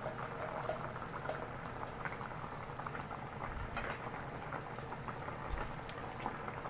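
Sinigang broth boiling hard in a stainless pot: a steady bubbling and crackling.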